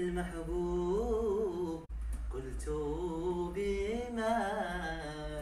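A single voice humming and singing a slow, ornamented melody without clear words, unaccompanied, with a brief break about two seconds in.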